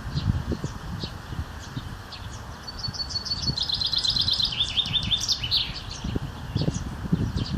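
Songbirds singing: scattered high chirps and a fast trill of repeated notes that steps down in pitch a few seconds in. Beneath them runs an irregular low rumble.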